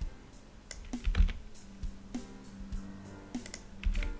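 Computer keyboard keystrokes and mouse clicks, about ten sharp clicks spread through, the loudest a little over a second in, over soft background music with sustained tones.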